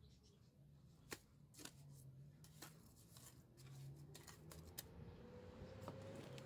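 Faint scattered clicks and scrapes of masonry work on the stone-and-mortar foundation, over a low steady hum. A faint rising whine comes in over the last couple of seconds.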